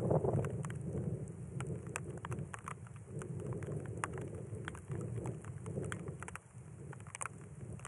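Desert rainstorm: scattered raindrops ticking sharply close by over a low, rolling rumble of thunder that eases about two-thirds of the way through and builds again near the end.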